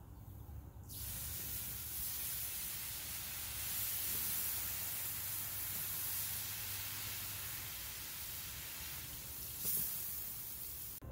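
Water poured onto a Lodge cast iron griddle heated to over 700 degrees on a gas grill, hissing and sizzling steadily as it flashes to steam; the hiss starts about a second in.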